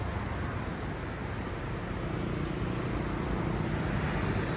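Road traffic noise: a steady rush of passing vehicles, with an engine hum that comes in about two seconds in and grows slightly louder.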